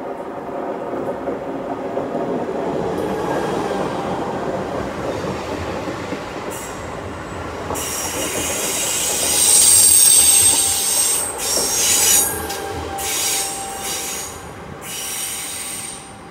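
Electric passenger train running past along the platform track. A steady rumble of the wheels comes first, then a high-pitched wheel squeal sets in about halfway and is loudest a little after that. The sound drops away near the end.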